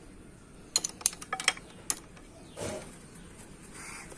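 Metal tools clinking on a two-stroke auto rickshaw engine: a quick, irregular run of sharp clicks about a second in. A crow caws near the end.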